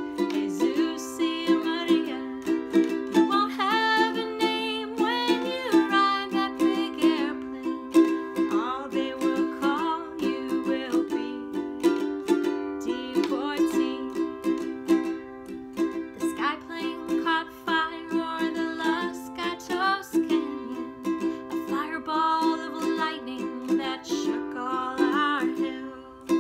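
Ukulele strummed in a steady rhythm, playing the chords of a folk song, with a wordless vocal melody carried over it in several phrases.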